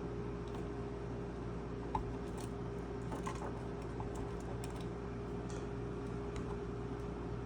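Scattered light clicks and taps of small wire connectors being handled and pushed onto circuit-board header pins, a few per second at most, over a steady electrical hum.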